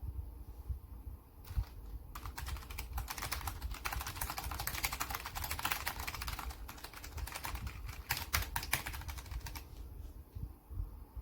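Typing on a Logitech G915 low-profile mechanical keyboard: fast, continuous key clicks that begin about two seconds in and ease off near the end.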